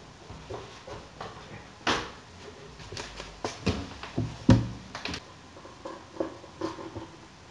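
Plastic blender jar being handled: a string of knocks and clicks as it is lifted off its motor base and set about, the loudest knock about halfway through, then thick blended nut milk pouring from the jar into a ceramic bowl near the end.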